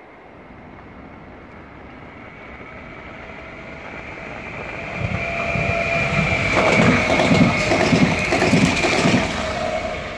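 Sm5 Stadler FLIRT electric commuter train approaching and passing at speed. A rising rush of wheels on rail carries a steady electric whine from the traction motors, then a rhythmic clatter of the bogies over the rail as the train goes by. The sound fades near the end.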